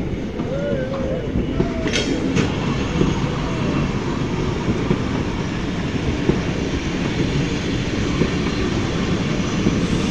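Train running along the track with a steady heavy rumble and wheel clatter, and two short sharp noises about two seconds in.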